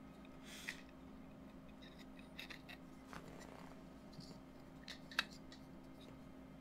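Faint handling of small plastic parts: a servo tester circuit board and its 3D-printed plastic enclosure clicking and rubbing as they are fitted together, with a sharper click about five seconds in.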